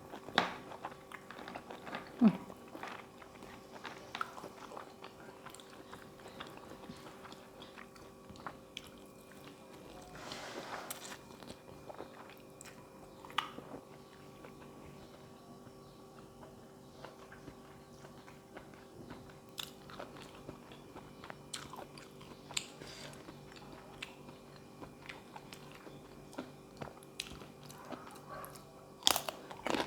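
Close-up eating of a spicy Thai pounded seafood salad: chewing with many short, crisp crunches and wet clicks, over a faint steady hum.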